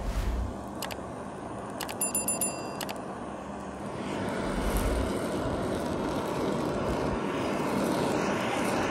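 Handheld butane kitchen blowtorch. A few sharp clicks come about two seconds in as it is lit, then the flame hisses steadily, growing a little louder, as it singes the fine hairs and pinfeathers off a raw chicken.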